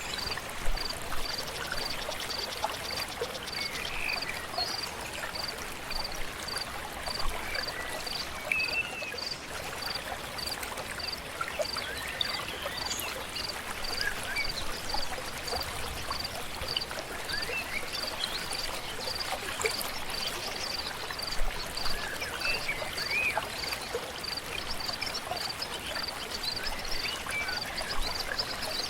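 River water flowing steadily, with birds chirping now and then. A high, evenly pulsed call repeats just under twice a second over it.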